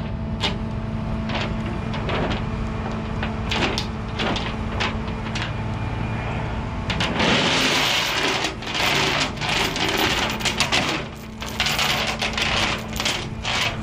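Steel tow chain clinking and rattling against a diamond-plate steel truck deck as it is handled and pulled snug, with a stretch of dense rattling from about seven to eleven seconds in. A steady engine hum runs underneath.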